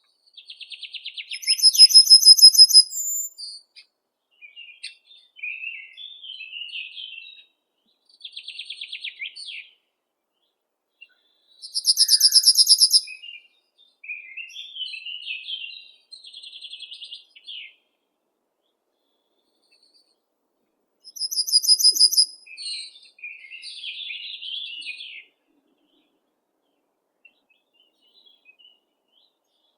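Songbird song: a loud, fast, high trill comes three times, near the start, about 12 seconds in and about 21 seconds in, with softer, lower chirping phrases between, and clean silent gaps between phrases.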